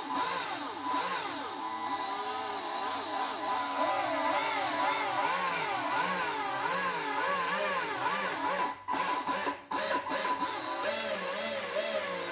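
A pair of 540-size electric motors run under a servo tester, their whine rising and falling again and again as the speed is swept up and down. The motors cut out briefly twice about three quarters of the way through, then pick up again.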